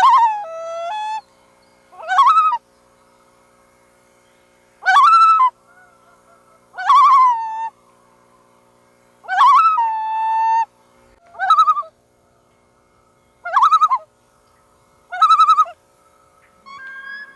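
Loons calling, about nine short calls a couple of seconds apart, several of them dropping or wavering in pitch. A faint steady hum sits underneath.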